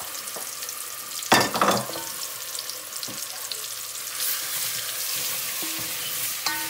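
Hot oil sizzling in a pan as a wet masala of onion, garlic and ground spices goes in and is stirred, with a brief loud burst about a second and a half in and a few light spoon clicks.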